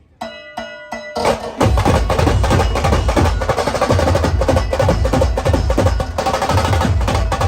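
Brass band dhol-tasha drumming. After a brief pause come three short pitched hits, and about a second in the full rhythm starts: rapid tasha strokes over deep dhol beats.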